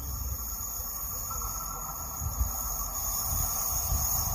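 Steady high-pitched chirring of crickets over a low wind rumble, while a distant approaching train slowly grows louder.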